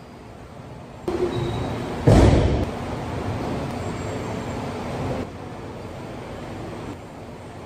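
Steady hiss of room noise that jumps up and down in level a few times, with one short loud thump about two seconds in.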